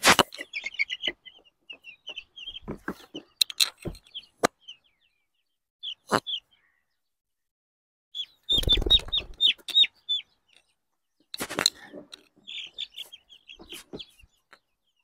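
Young chicks peeping in short runs of quick, high, falling cheeps. Several louder rustling bumps come in between, the biggest about eight and a half seconds in.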